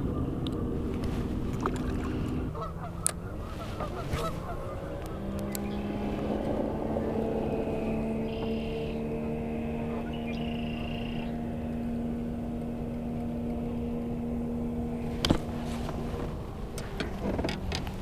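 Geese honking over a steady low hum whose pitch shifts a few seconds in, with a couple of sharp clicks.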